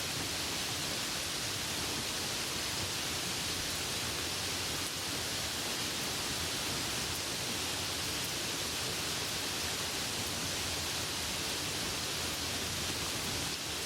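Steady rain falling: an even, unbroken hiss with no separate drops, thunder or other events standing out.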